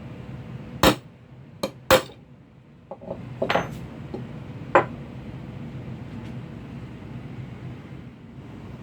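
Small metal parts clinking and knocking against each other or a hard surface: about five sharp strikes with brief ringing, the loudest near 1 s, 2 s and 5 s in, over a steady low hum.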